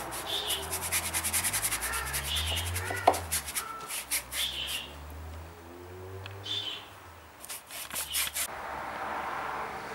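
Paintbrush rubbing over a pine shelf in quick back-and-forth strokes, brushing on a second coat of white paint. The strokes pause for a few seconds midway and start again briefly. A low hum runs underneath.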